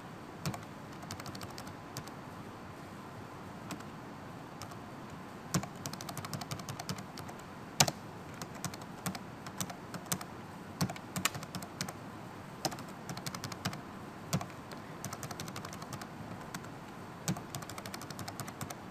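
Computer keyboard typing: irregular runs of key clicks, sparse at first and quicker and denser from about a third of the way in, with one louder key strike near the middle.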